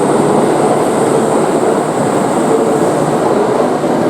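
Kintetsu 80000 series Hinotori limited express train running into a station platform: a steady rumble of wheels and motors with a faint steady whine.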